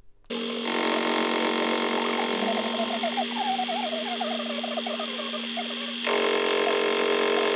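Milling machine running steadily as it cuts the steering arms, machining them flat and drilling their ends, with a wavering squeal from the cut. The sound changes about six seconds in.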